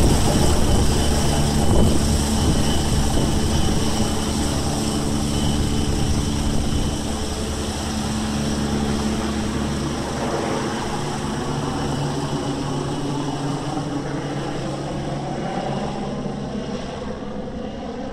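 MBB Bo 105 helicopter, with twin Allison 250-C20B turboshaft engines and a four-blade main rotor, flying overhead and away: steady rotor and engine noise with a thin high whine, fading gradually.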